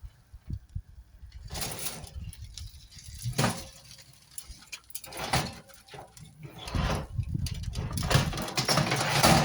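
Oven door opened and a roasting tray handled: a string of irregular knocks, scrapes and rustling, longer and denser near the end.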